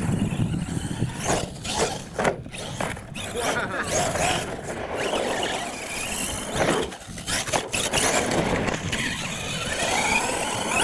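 Radio-controlled monster truck's electric motors whining, the pitch rising and falling as the throttle is worked, with tyres scrabbling over dirt; a rising whine near the end.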